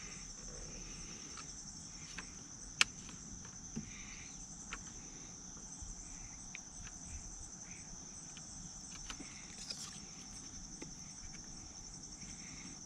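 Steady high-pitched insect chirring, with scattered faint clicks of handling. The loudest is a single sharp click about three seconds in.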